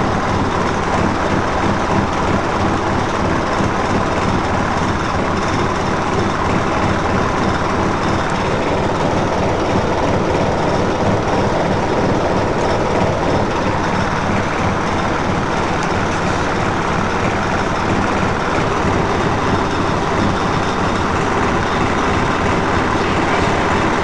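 Scania L113CRL bus's 11-litre straight-six diesel engine idling roughly, heard from inside the passenger saloon. The sound is loud and steady throughout.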